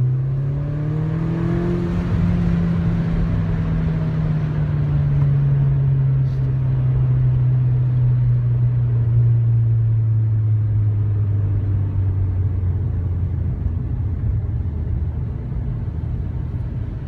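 Engine and road noise inside a MINI John Cooper Works, the turbocharged four-cylinder holding a steady note under a constant tyre rumble. The pitch rises a little in the first two seconds, then sinks slowly as the car eases off.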